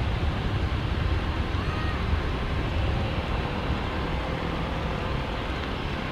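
Jet engines of a Batik Air twin-jet airliner at takeoff power, rolling down the runway and lifting off: a steady low rumble with a broad rush above it, easing off a little toward the end.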